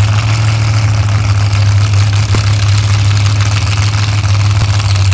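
Mud-bog pickup truck's engine idling steadily, a low, even rumble.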